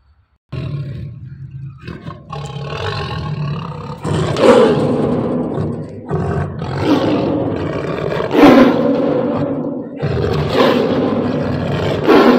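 Tiger growling continuously while being hand-fed meat through a wire cage, with several louder snarling surges.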